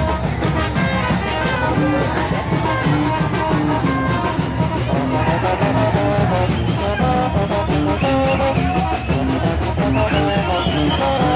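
Brass band playing a lively tune, with horns carrying the melody over a steady drum beat.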